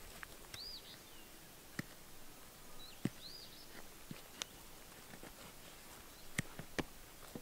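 Scattered small clicks and scrapes of dirt and gravel as a painted turtle works its hind feet at its nest hole, the sharpest about three seconds in and a quick cluster near the end. A bird gives a short up-and-down whistled note twice.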